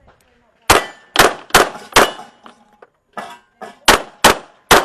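Handgun shots fired rapidly on a competition stage: four loud shots about half a second apart, a short pause with a few fainter sharp cracks, then three more quick shots near the end.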